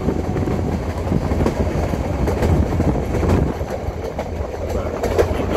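Steady low rumble with frequent light clicks and rattles: the running noise of a moving vehicle.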